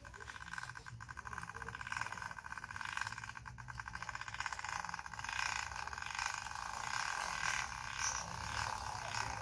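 Toy truck rattling as it is pulled along the ground, a dense, fast clatter that goes on throughout.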